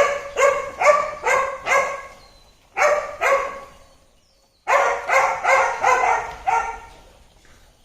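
An animal calling over and over in short, pitched calls, about two or three a second. The calls come in three runs with brief pauses between them.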